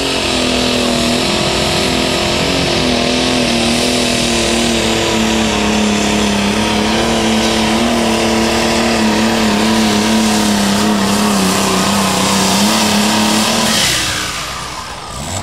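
Super stock pulling tractor's engine running flat out under load during a pull, a steady high-revving drone with a heavy hiss above it. About a second before the end it falls away sharply as the run stops.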